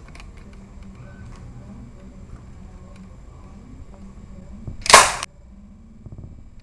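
A few faint clicks, then one sharp shot-like crack about five seconds in.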